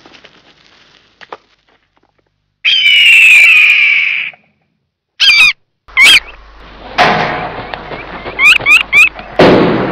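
Shrill bird-of-prey screams: one long falling screech, then a string of short, sharp calls. Two sudden crashes, each fading slowly, break in during the second half.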